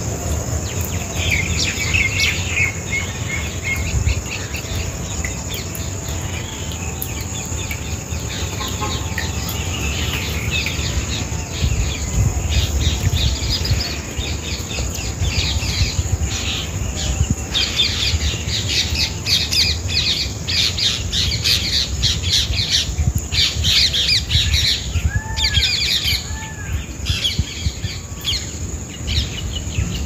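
Birds chirping and calling over insects in open country, with many short high chirps throughout and a pair of arched, rising-and-falling calls about 25 seconds in. A steady low rumble runs underneath.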